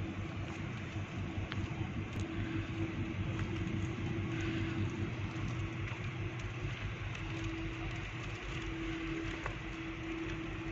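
Large ship's engines passing at close range: a steady low rumble with a steady hum that fades in and out.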